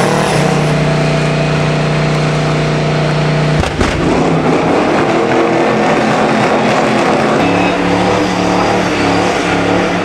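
Second-generation Chevrolet Camaro doing a burnout: the engine held at high revs with the rear tyres spinning in smoke. Its note holds one steady pitch for the first few seconds, then turns rougher and rises and falls as the car slides round.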